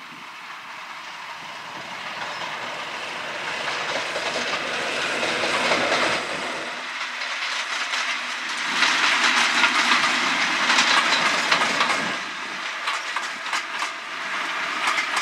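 Class 50 diesel locomotive No. 50007, its English Electric V16 engine running under power, growing steadily louder over the first six seconds as it approaches and passes hauling coaches. In the second half the wheels of the loco and coaches clatter over rail joints in a run of sharp clicks.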